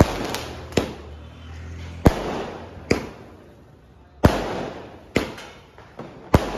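A 60-shot Vivaha Utsav sky-shot fireworks cake firing: about eight sharp bangs, roughly one a second at uneven spacing, each trailing off briefly.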